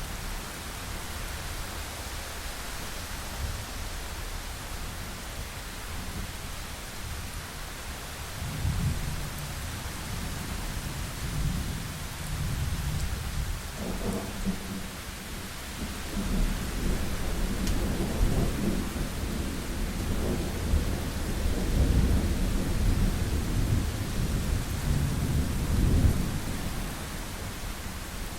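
Thunderstorm: steady rain hiss with rolling thunder. The rumble swells about a third of the way in and is loudest and longest in the latter half before easing off near the end.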